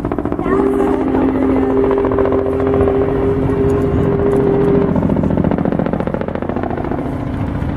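The train's locomotive sounding one long, low warning blast of two steady notes, lasting about four seconds. Under it and after it runs a rapid, steady pulsing rumble.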